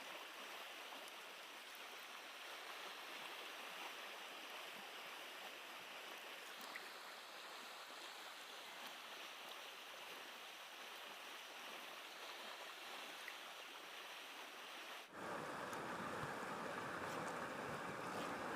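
Creek water running steadily. About fifteen seconds in it cuts abruptly to a louder, closer rush of water.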